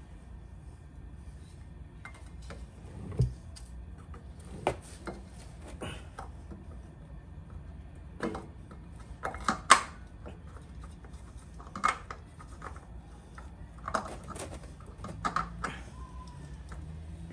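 Scattered light clicks and knocks of hands working a new spin-on oil filter onto its mount under a car, the filter half-filled with oil beforehand. The sharpest knocks come about three seconds and ten seconds in.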